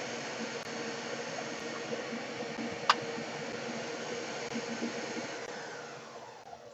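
Electric motor running steadily with a hum and a faint whine, then winding down near the end with its pitch falling. A single sharp click sounds about three seconds in.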